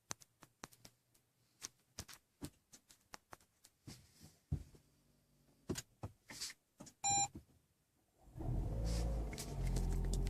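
Clicks of hands on the controls in a car cabin, a short electronic beep about seven seconds in, then the Toyota Prius's four-cylinder petrol engine starting about a second later and running with a steady low hum. This start-up sound is the engine noise the owner is troubled by.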